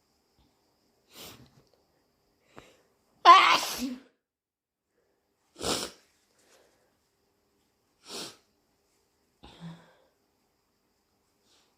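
A person sneezing: one loud, wet sneeze about three seconds in, with several shorter, quieter bursts before and after it.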